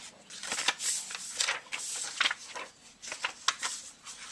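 Hands handling subwoofer recone parts and voice-coil gap shims: a run of irregular small clicks and short rustles.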